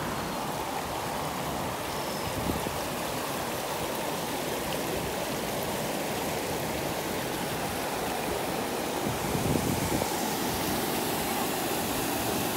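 Steady rushing of a shallow creek running over rocks and rapids, with two brief low bumps, one about two seconds in and one near the end.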